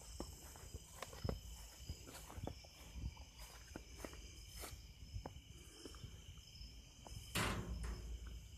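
Crickets and other night insects singing in several steady high tones, with irregular footsteps and small knocks of handling close by, and one louder scraping rustle about seven seconds in.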